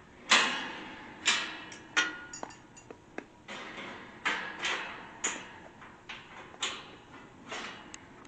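Irregular series of about a dozen sharp knocks and clatters of hard objects being handled, a few with a brief ringing tone.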